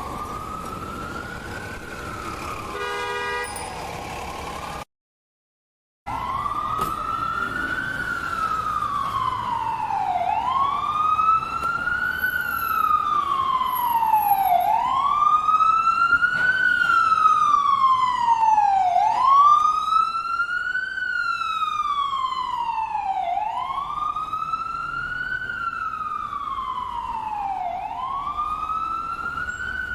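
Ambulance siren sounding a wail, its pitch sweeping slowly up and down about once every four seconds. The sound cuts out completely for about a second around five seconds in, then the wail starts again, swelling a little louder toward the middle and easing off near the end.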